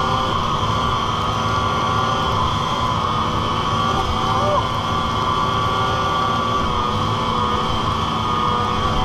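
Yamaha SXR 600 triple snowmobile's three-cylinder two-stroke engine running under way at steady, fairly high revs, with a constant rush of low noise underneath.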